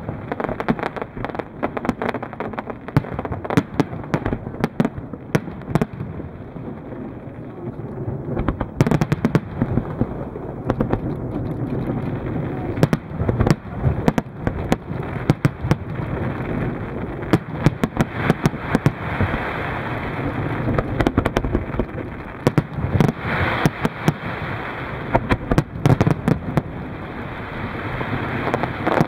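Large aerial fireworks display: shells bursting in a dense, irregular string of sharp bangs, several a second, over a continuous background din.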